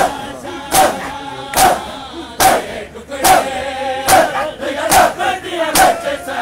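A crowd of mourners beating their chests in unison (matam): a sharp, loud slap about every 0.8 seconds, eight in all, with men's voices chanting a noha between the beats.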